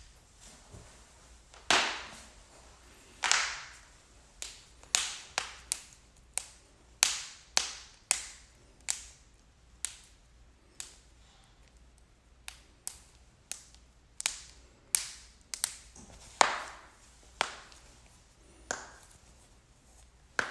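A run of sharp joint cracks and pops, about two dozen at uneven spacing, some louder than others and trailing off briefly after each crack.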